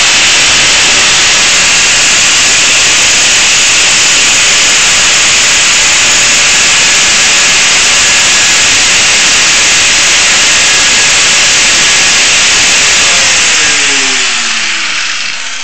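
Angle grinder cutting into a steel handcuff: a loud, steady hiss of the abrasive disc on metal. Near the end the grinder comes off the metal and winds down, its pitch falling.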